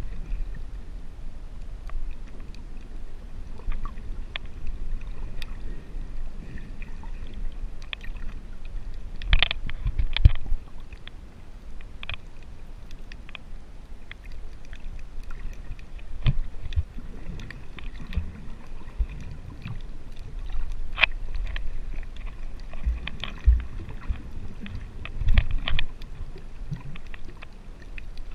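Muffled underwater sound picked up by a GoPro in its waterproof housing: a steady low rumble of water moving around the camera, with scattered sharp clicks and knocks, a few louder ones about a third of the way in and near the end.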